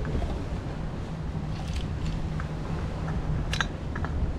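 A few light clicks and taps of camp-stove gear being handled, a steel cup and the plastic cap of a gas canister, over a steady low rumble.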